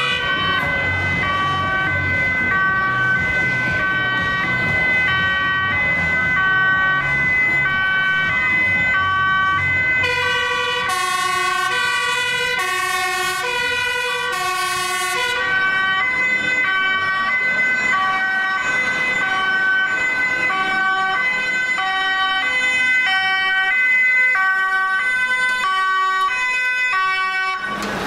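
Two-tone (hi-lo) sirens of several Dutch emergency vehicles sounding at once and overlapping out of step. A fire engine's engine rumbles underneath for the first ten seconds or so. A further, lower-pitched two-tone siren joins from about ten to fifteen seconds in.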